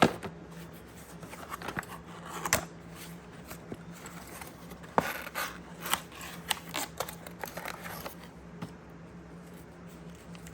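Product packaging being opened and handled by hand: a scattered series of sharp clicks, scrapes and short rustles.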